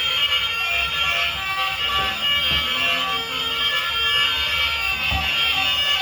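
Electronic sound effects from battery-powered toy vehicles: several steady, tinny alarm-like tones sounding together, with a few soft low knocks.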